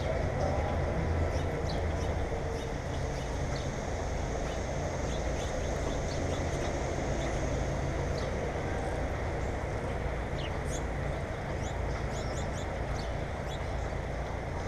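Birds calling in short high chirps, scattered through, over a steady low rumble.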